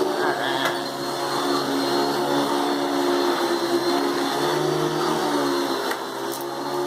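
Hoover Dimension 1000 canister vacuum cleaner with its power nozzle running steadily on carpet, a motor hum with a thin high whine whose pitch wavers slightly as the nozzle is pushed back and forth. A couple of faint ticks come through, one near the start and one near the end.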